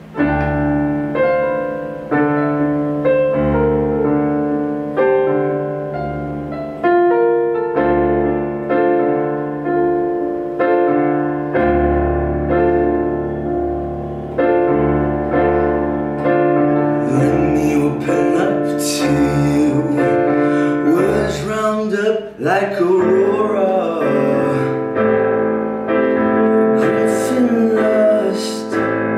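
Piano sound on an electric keyboard playing a slow chord intro, a chord struck about once a second and left to ring.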